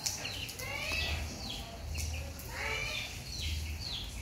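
Baby macaque giving high-pitched squeaky calls: short sharp chirps a couple of times a second, and two longer rising squeals. A steady low hum runs underneath.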